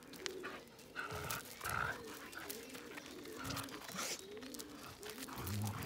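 Two dogs growling in play as they tug on a rope toy, louder near the end, with paws scuffing on gravel.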